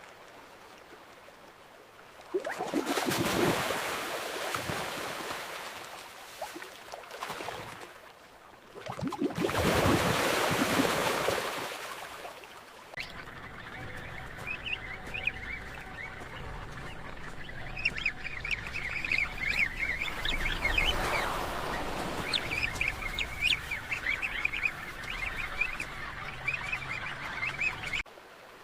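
Two loud rushes of water a few seconds apart, then a crowd of penguins in a colony honking and calling over a low steady wash, cutting off suddenly near the end.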